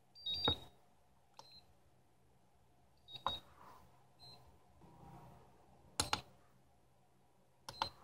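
Turnigy Accucel-6 hobby chargers beeping: about five short high beeps spread through a few seconds, with a few sharp clicks among them, as the start buttons are held and pressed to confirm the 3S LiPo packs and begin balance charging.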